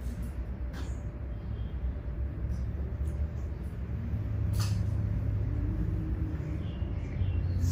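Steady low rumble that swells about four seconds in, with a couple of short, sharp clicks, one near the start and one about four and a half seconds in.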